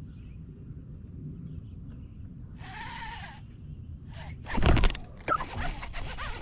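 Handling noise close to the microphone: loud knocks about four and a half seconds in, then rustling as hands work the fishing line in front of the camera. Before that, a low steady wind rumble with faint bird chirps, and about three seconds in one short call rising then falling in pitch.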